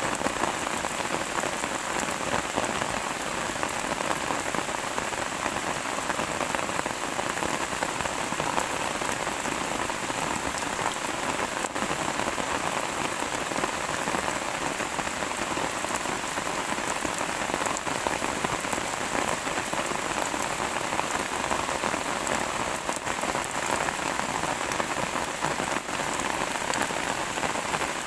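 Steady rain falling on a surface: an even, dense patter of drops that holds constant throughout.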